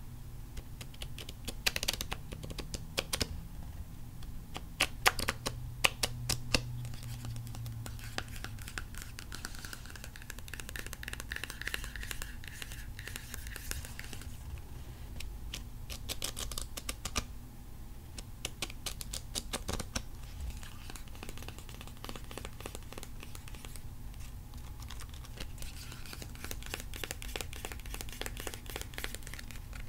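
Long fingernails tapping, clicking and scratching on a stack of cards in irregular clusters of sharp clicks. A steady low hum of recording noise runs underneath.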